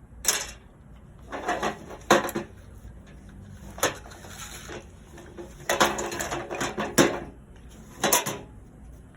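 Seatbelt retractor from a 2018 Honda Civic being worked by hand as its locking is tested. It gives a series of sharp plastic-and-metal clicks and rattles at irregular intervals, with a longer clattering stretch about six seconds in.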